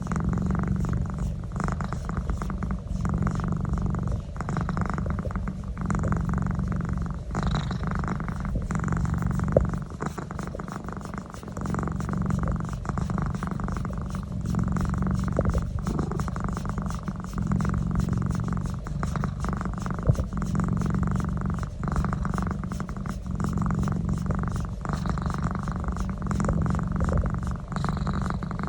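Domestic cat purring steadily while having its neck massaged, the purr swelling and easing with each breath about every second or two. Two brief sharp clicks cut through, about ten and twenty seconds in.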